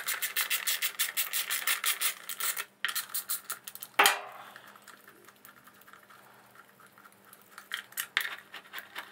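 Small socket ratchet clicking rapidly as the sprocket-cover bolts are spun out, then a single sharp knock about four seconds in, followed by a few scattered clicks of the tool near the end.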